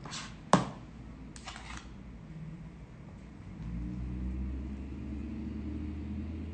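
A metal spatula clinks once, sharply, against a bowl about half a second in, with a faint scrape of the spatula through caramel filling on the cake. A low steady hum begins about halfway through and continues.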